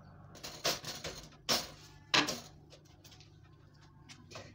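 A few short, sharp scrapes and knocks, the loudest two around the middle, as the extractor fan's frame is handled and pressed into the wall opening, over a faint steady low hum.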